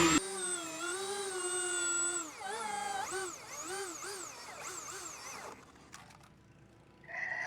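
Milwaukee M18 Fuel cordless chainsaw's electric motor running with a steady whine. About two seconds in it switches to a string of short revs that rise and fall in pitch as the trigger is blipped, then winds down and stops a little past five seconds in.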